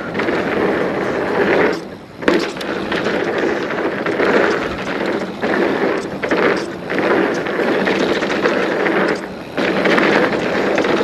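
Hardtail mountain bike descending a bumpy dirt trail: tyres on rough ground and the bike rattling over the bumps, mixed with wind on the microphone, with a few brief lulls.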